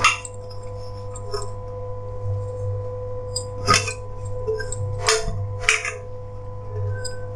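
A utensil knocking against a metal kadai four times: once at the start, then three times between about three and a half and six seconds in, as drumstick leaves go into the boiling soup. A steady hum runs underneath.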